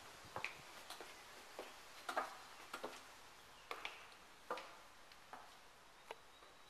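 Faint footsteps of someone walking across hard floors, a light click about every two-thirds of a second.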